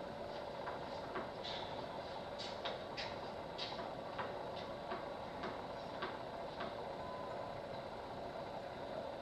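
Tennis ball bounced repeatedly on a hard court before a serve: a string of light knocks roughly twice a second, over a steady hiss and faint hum.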